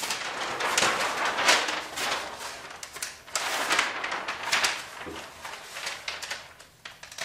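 Large sheets of flip-chart paper rustling and crackling as pages are lifted and flipped over. The rustling comes in several bursts, loudest about a second and a half in and again around three and a half seconds in.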